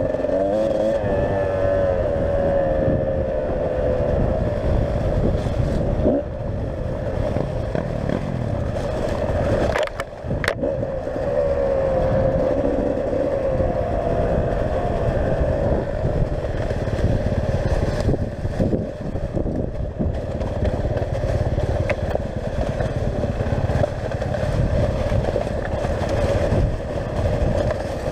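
Enduro motorcycle engine running steadily on a trail ride, its note drifting slightly up and down with the throttle. The engine briefly drops off about ten seconds in, with a sharp click.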